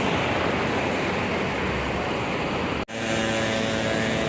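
Steady roar of road traffic as tour buses pass on the road. It cuts off abruptly just under three seconds in and gives way to a steady engine hum.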